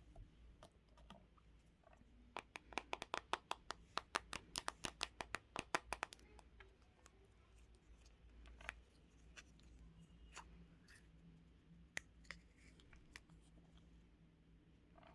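A quick run of small sharp clicks, about seven a second, starting about two seconds in and lasting some four seconds, then a few single clicks.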